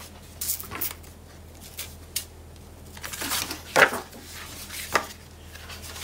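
Sheets of cardstock and patterned paper being handled on a cutting mat: scattered rustles and light taps, the loudest just before four seconds in, over a faint steady low hum.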